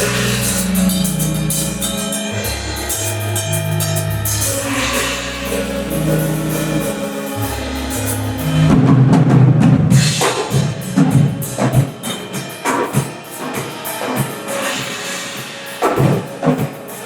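Instrumental music: held low notes for the first half, then drums and percussion come in about halfway through and carry on to the end.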